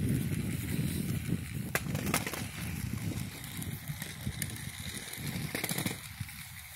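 Measuring wheel rolling over dry grass and pavement while the person walks, with footsteps and a few sharp clicks along the way.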